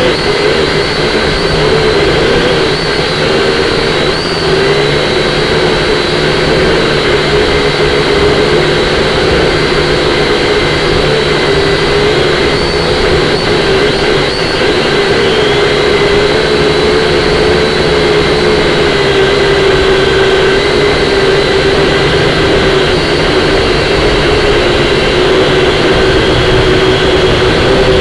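Syma X5C-1 quadcopter's motors and propellers whining, the pitch wavering up and down as the throttle changes, over heavy wind noise buffeting the microphone.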